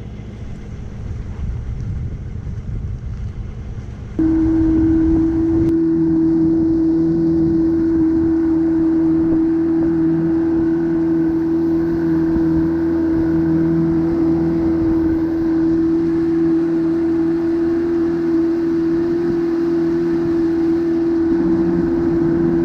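Bass boat outboard motor running steadily at speed, one constant even-pitched drone that comes in abruptly about four seconds in. Before it there is a low rumble that grows louder.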